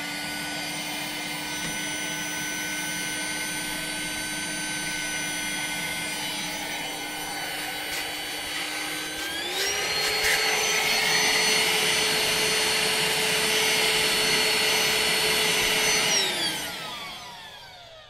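BLACK+DECKER cordless hand vacuum with a crevice tool running with a steady motor whine. About nine seconds in it steps up to a higher pitch and gets louder, and near the end it winds down with a falling pitch.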